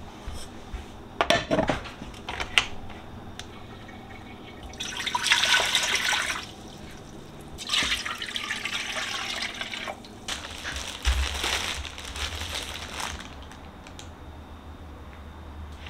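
Water pouring from a saucepan into a cooking pot, in two pours of a second or two each, after a few knocks of cookware.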